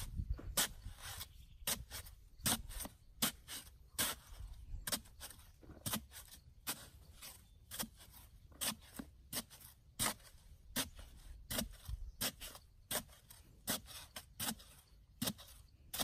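A long-handled digging tool chopping and scraping into soil in a hole, in a steady run of strikes, roughly three every two seconds.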